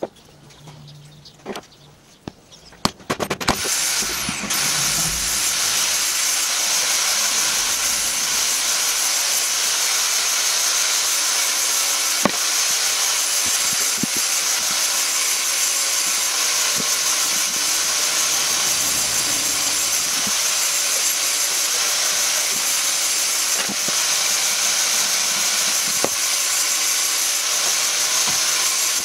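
A loud, steady hiss starts about three and a half seconds in and keeps going. Over it come a few light clicks and knocks as small metal parts of a vise are handled.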